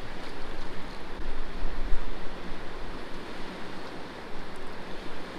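Steady rush of river water, with wind buffeting the microphone in low gusts about two seconds in.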